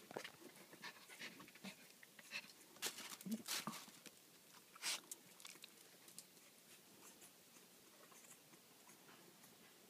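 Faint sounds of two puppies playing in their bed: a scatter of short, sharp scuffling noises over the first five seconds, the loudest about five seconds in, then nearly quiet.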